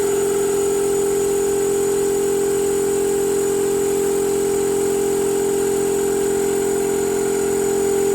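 Old Ingersoll Rand air compressor running steadily on a test run after repair, a loud, even hum at one constant pitch; it is not yet building pressure.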